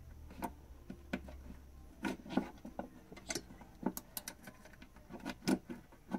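Irregular small clicks, taps and light scrapes of a drawer rail and the small screw of a metal binding post being handled against a particle-board closet-organizer panel while the holes are lined up.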